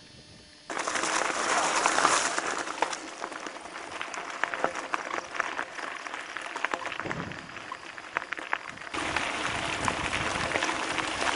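Mountain bike rolling fast over a rough dirt and gravel trail: a steady rushing noise of tyres on the ground, peppered with many small clicks and rattles of stones and the bike. It starts suddenly under a second in and turns denser and steadier about nine seconds in.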